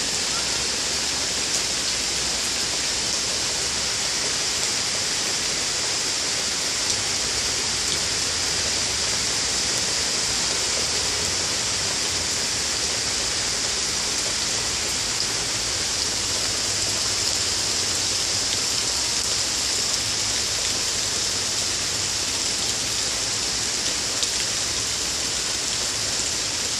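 Heavy rain falling steadily on a concrete driveway, lawn and trees: an even, constant hiss with no let-up.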